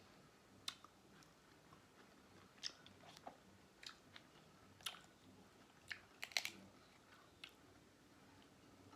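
Crab leg shells cracking and crunching while being eaten, with chewing: short sharp cracks at irregular intervals over a quiet background, the loudest a quick cluster about six seconds in.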